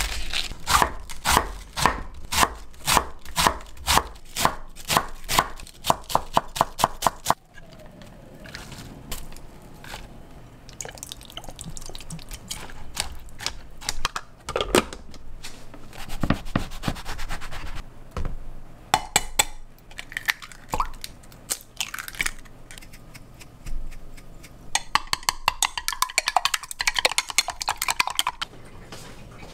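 A kitchen knife shredding cabbage on a wooden cutting board: a fast run of crisp chops for the first seven seconds or so. After that come quieter sounds of shredded cabbage being handled in a plastic salad spinner bowl, and about 25 seconds in, eggs are beaten in a glass cup with a quick rattle of clicks.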